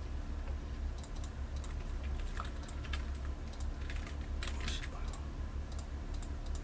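Computer keyboard keys tapped in scattered, irregular presses, with a quick cluster of taps about four and a half seconds in, over a steady low hum. The key presses are the artist's shortcuts while merging and undoing layers in Photoshop.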